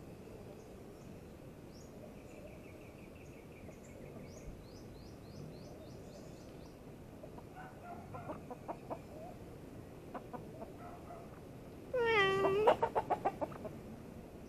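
Chickens clucking: scattered single clucks, then about twelve seconds in a loud drawn-out squawk followed by a quick run of about eight clucks. Faint small-bird chirps in the first half.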